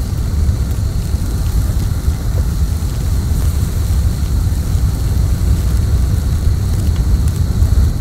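Gas blow torch flame burning steadily: a loud, low rush with hiss above it and a faint high whistle. It starts to die away near the end.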